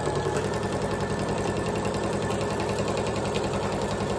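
Janome computerized sewing machine stitching steadily at speed through a vinyl seam, its needle making a fast, even rhythm.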